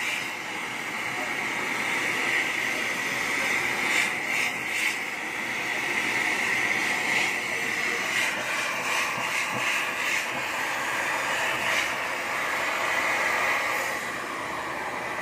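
Gas torch flame hissing steadily, with a few faint clicks about four seconds in and again between about eight and twelve seconds.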